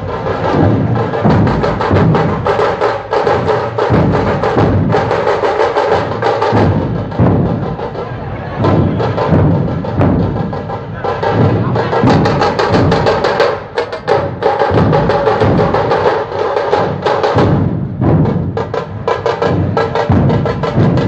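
Dhol-tasha troupe playing in a procession: many large two-headed dhol drums pounding a fast, driving rhythm with dense, rapid strokes throughout.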